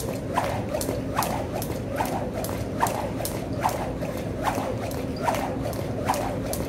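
Jump rope skipping in a steady rhythm: sharp slaps and taps on the floor, a loud one a little more than once a second with softer taps between.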